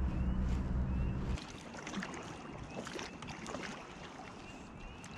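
Wind buffeting the microphone for about the first second and a half, then cutting off. After that comes a kayak paddle dipping and pulling through the water, with light splashes and scattered small knocks.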